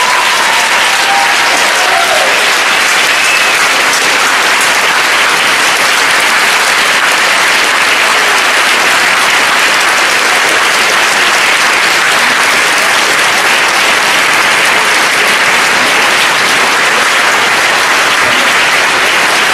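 A large audience applauding steadily and at length, a dense even clapping that holds its level without letting up.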